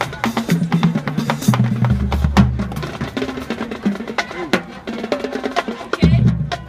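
Marching drumline playing a fast cadence: rapid snare strokes over pitched marching bass drums, the bass drum notes dropping out for a stretch and coming back strongly near the end.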